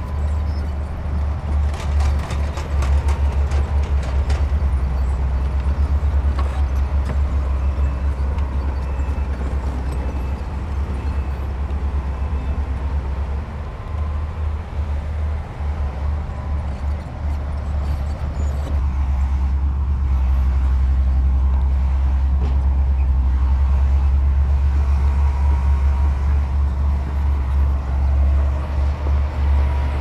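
Heavy diesel earthmoving machinery running under load, a deep steady engine rumble, with a run of sharp clattering knocks about two to four seconds in.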